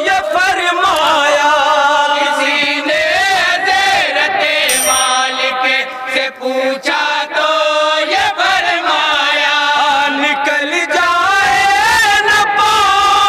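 A group of men singing a naat (Islamic devotional hymn praising the Prophet) together in chorus, loud and sustained, with long wavering melodic lines.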